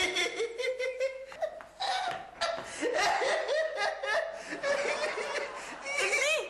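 A man laughing hard in repeated bursts, with a few words mixed in.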